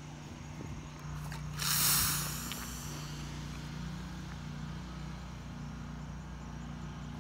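Elephant-toothpaste foam from 35% hydrogen peroxide, decomposing with a potassium iodide catalyst, jetting out of the neck of a plastic bottle: a sudden loud hissing whoosh about a second and a half in, lasting about a second. A steady low hum runs underneath.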